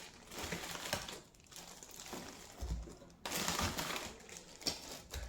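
Plastic packaging and small camera accessories being handled and rummaged through in a box: irregular rustling with light clicks and clacks, and a soft thump about two and a half seconds in.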